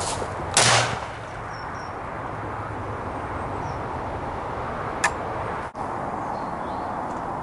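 Steady rustle and wind noise on a camera mounted on an air rifle as it moves through long grass, broken by one loud sudden burst about half a second in and a single sharp click about five seconds in.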